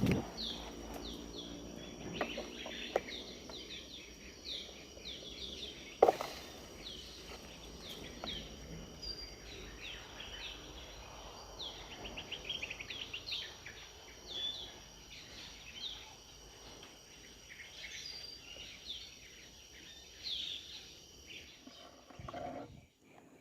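Bird chirping in a long run of short, high notes, several a second, over a faint steady high insect drone; a single sharp click about six seconds in.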